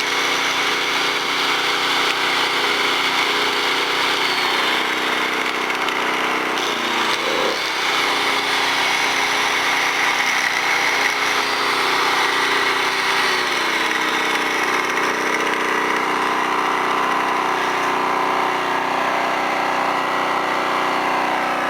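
Angle grinder running off a rebuilt Alton AT04141 1300-watt suitcase generator, with the generator's small engine running steadily under the grinder's load. It is a continuous high whine with slight shifts in pitch now and then, and the generator holds the load: it runs good.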